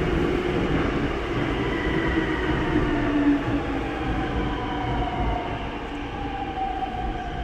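Subway train pulling into the station and slowing: a steady rumble with a whine that falls slowly in pitch as it slows.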